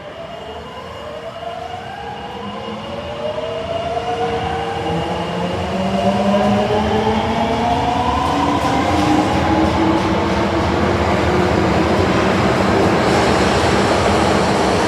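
Osaka Metro Tanimachi Line 22 series subway train accelerating away. Several whining tones from the traction motors climb steadily in pitch as it gains speed, getting louder over the first six seconds or so and then holding steady.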